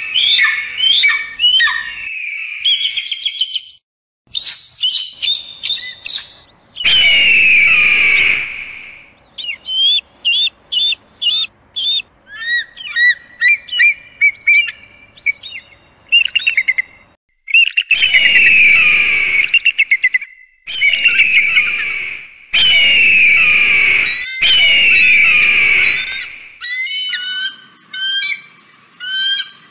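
Eagles calling: rapid runs of high, chattering chirps alternate with several long, harsh screeches, with short pauses between calls.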